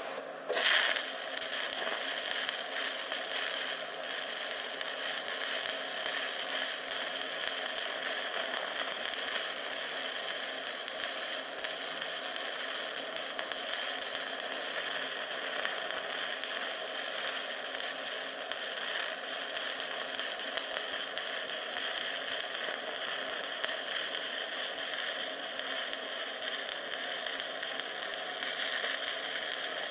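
Electric arc welding on a steel railroad-rail anvil: the arc strikes about half a second in and then runs as a steady crackling hiss while a bead is laid.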